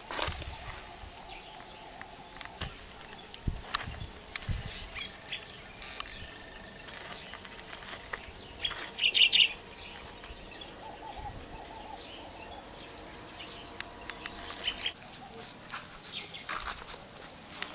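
Outdoor ambience of insects with scattered bird chirps, one louder short chirping call about nine seconds in, and a few brief clicks.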